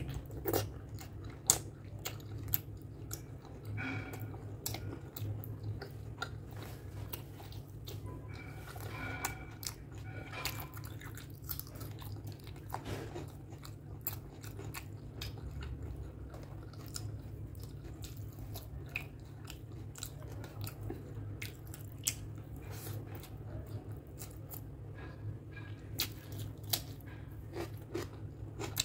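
Close-up chewing and wet mouth sounds of a person eating pork curry and rice by hand: many small smacking clicks over a steady low hum.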